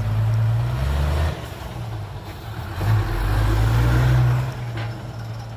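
Heavy diesel engine running, revving up twice: once for the first second or so and again from about three seconds in, before settling back.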